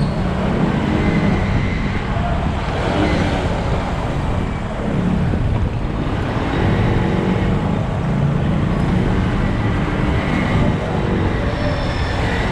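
Riding a Honda Unicorn motorcycle through dense city traffic: its small single-cylinder engine runs under wind rushing on the microphone, amid the noise of surrounding traffic.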